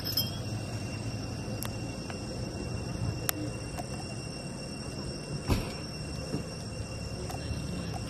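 Outdoor ambience of steady, high-pitched insect trilling over a low rumble, with a few sharp clicks, the loudest about five and a half seconds in.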